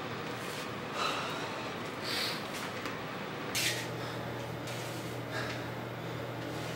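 A man breathing heavily, with a few audible breaths and gasps about a second or so apart. A low steady hum comes in about halfway through.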